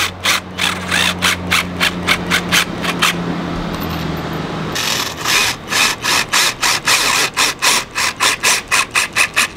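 Cordless drill/driver driving screws into a van's metal roof, giving a rapid, even run of clicks, about six a second. The clicking breaks off for about two seconds a little past three seconds in, then starts again.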